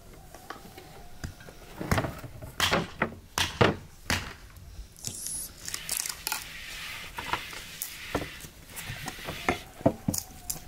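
Several sharp knocks and clatters of a bowl, boards and a plastic tub set down on a wooden table, then a soft rustling hiss of flour poured from the tub and spread by hand over a round wooden board.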